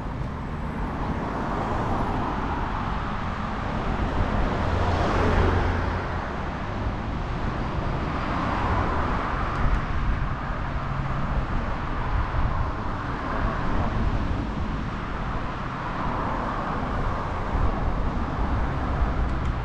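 Road traffic passing a moving bicycle: several cars go by one after another, each a rise and fall of tyre and engine noise, over a steady low rumble of wind on the camera microphone.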